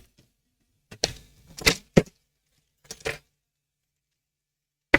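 Sharp clicks and light taps in small clusters about one, two and three seconds in: small hand tools handled and set down on a repair bench.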